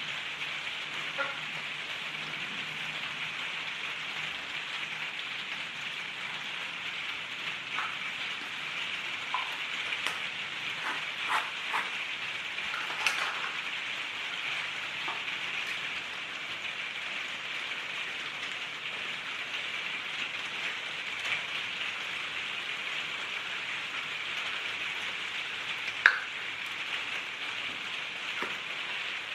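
Steady hiss of heavy rain, with scattered light clicks and knocks of small plastic parts being handled and one sharper knock near the end.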